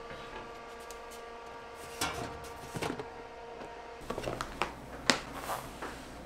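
Steady hum of a bread proofing cabinet's fan, with a couple of knocks from the plastic dough container. About four seconds in the hum stops, and the plastic latch clips of a snap-lock food container click open one after another as its lid is lifted off.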